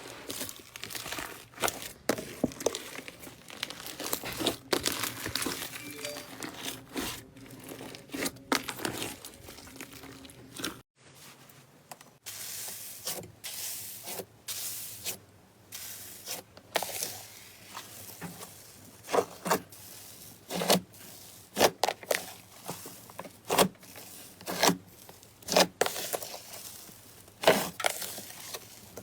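Hands squeezing and pressing slime: dense crackling and crinkling, then, after a short break, separate sharp pops and clicks about once a second.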